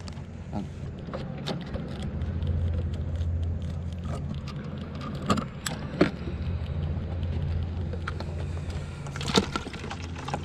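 Wire crab trap clinking and rattling as a blue crab is worked out of it by hand, with a few sharp knocks. A steady low hum runs underneath.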